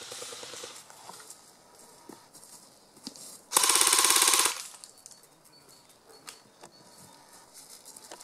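AK-style airsoft rifle firing one rapid full-auto burst lasting about a second.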